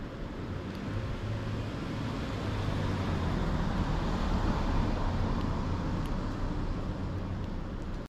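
A car passing: a broad rumble and hiss that swells to its loudest about four to five seconds in, then eases off, over a steady low hum.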